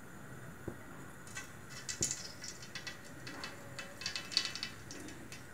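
Solid fat melting in a hot stainless-steel pan, giving faint, irregular crackles and small pops that come more often after the first second.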